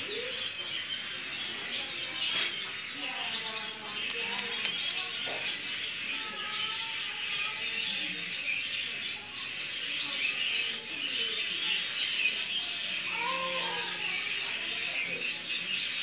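A flock of small birds chirping steadily, many short high calls overlapping in a dense chatter.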